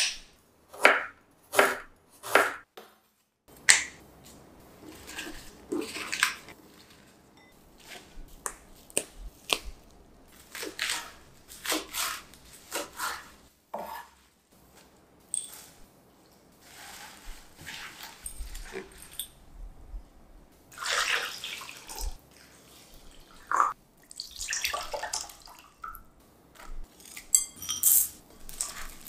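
Kitchen food-prep sounds: a knife cutting young ginger and purple perilla leaves on a cutting board in short separate strokes, with handling in between. Near the end, rock sugar crystals pour into a glass bowl.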